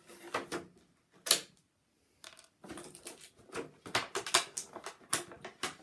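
Hands handling the plastic packaging of an action figure's accessories: a sharp click about a second in, then a run of irregular plastic clicks and rustles.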